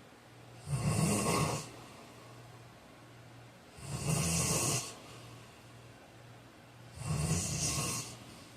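A man snoring in his sleep: three snores about three seconds apart, each lasting about a second, with a low rumble under a rasping hiss. A faint steady low hum fills the gaps between them.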